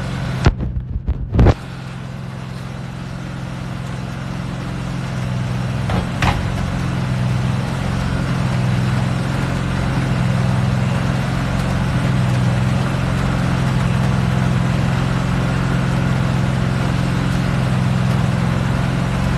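Air compressor running steadily as it inflates a newly mounted tire whose beads have just seated, with air hissing in, slowly getting louder. A few sharp knocks in the first two seconds and a single click about six seconds in.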